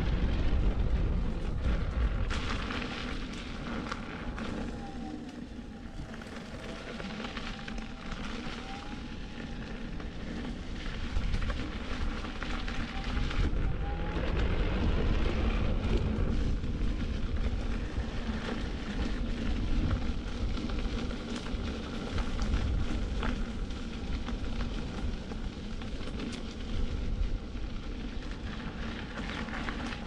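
Wind rumbling on the action camera's microphone, with the tyre of an InMotion V12 electric unicycle crackling as it rolls over a wooden boardwalk and then a sandy gravel path.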